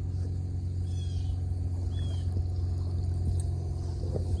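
Steady low mechanical hum, like a motor running at constant speed, starting and stopping abruptly. A few faint short chirps are heard about one and two seconds in.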